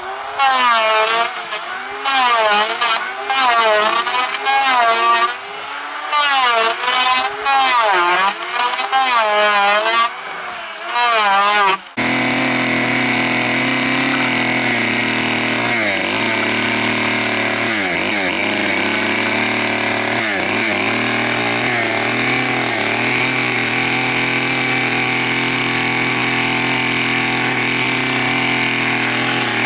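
Small two-stroke chainsaw revving up and down over and over in short bursts, then, about twelve seconds in, a sudden switch to a power tool running steadily and loudly.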